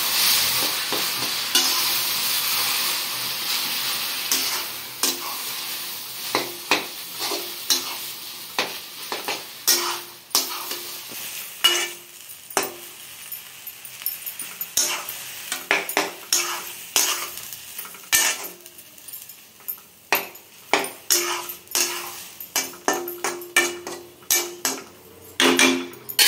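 Drumstick leaves with moong dal and coconut stir-frying in a steel kadai. Hot oil sizzles loudly at first and dies away over the first several seconds, while a metal spatula scrapes and clinks against the pan, the strokes coming thick and sharp once the sizzle has faded.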